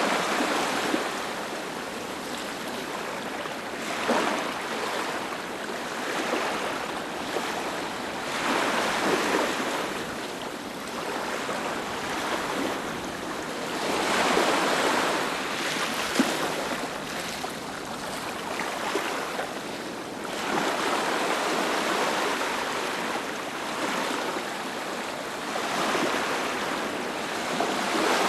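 Ocean waves breaking on a beach: a continuous rush of surf that swells and fades as each wave comes in, about every four to six seconds.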